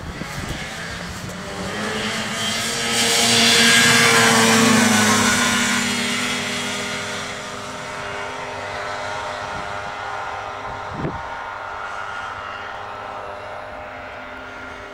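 1980 Polaris Galaxy 440 snowmobile's two-stroke engine running under way, loudest about four seconds in, then dipping slightly in pitch and fading to a steady, more distant drone as the sled heads off across the field. It runs well with its carburettor cleared of old foam.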